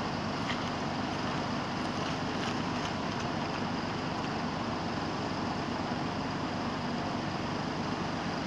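Mobile crane's engine running steadily while the crane holds its load on the cables.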